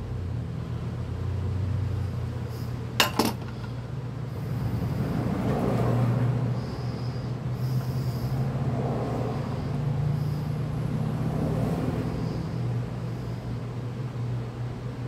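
Faint rustling and scraping of a nylon starter rope being worked through the hole in a Tecumseh recoil starter pulley, with a sharp click about three seconds in, over a steady low mechanical hum.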